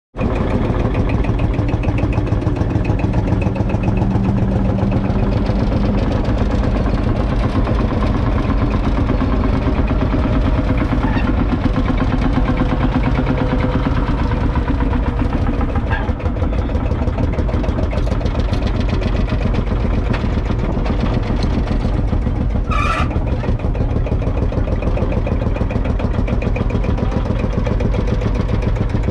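1948 Field Marshall Series 2's 5.1-litre single-cylinder two-stroke diesel engine running steadily as the tractor drives slowly, with a rapid, even beat from its single cylinder. A brief high-pitched sound cuts in about three-quarters of the way through.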